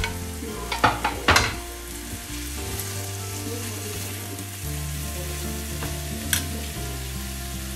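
Tofu and beaten egg sizzling in hot oil in a frying pan while a plastic spatula stirs them, with a few sharp scrapes and taps of the spatula in the first second and a half.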